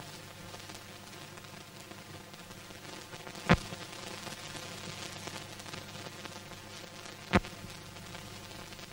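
Steady hiss and crackle of an old film soundtrack with no sound recorded. Two sharp, loud pops come a few seconds apart, about three and a half seconds in and again near the end.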